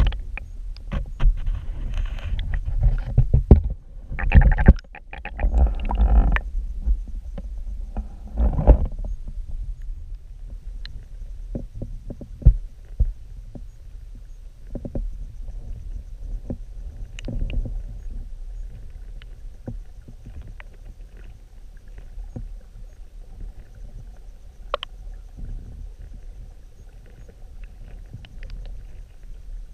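Creek water flowing, heard underwater through a camera's waterproof housing: a muffled low rumble with scattered clicks and knocks, and louder bursts of sloshing in the first nine seconds or so.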